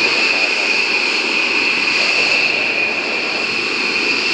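B-1B Lancer's four General Electric F101 turbofan engines running steadily on the ground: a constant high-pitched whine over a steady rush of jet exhaust.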